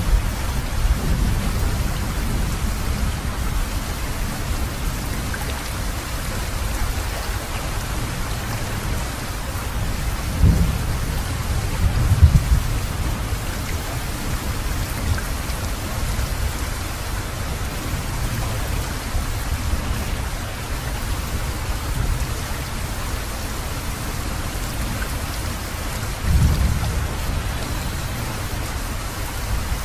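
Recording of steady rain with thunder rumbling low underneath; the thunder swells about ten, twelve and twenty-six seconds in, loudest near twelve seconds.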